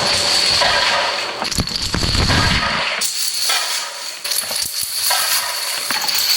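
Marbles rolling and clattering through a plastic marble run, with many quick clicks and knocks over a steady high whine, and a low rumble about two seconds in.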